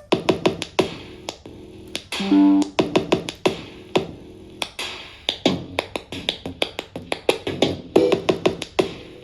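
Electronic song with a drum-machine beat and synth notes, played through a small Zebronics Zeb-Pluto USB multimedia speaker.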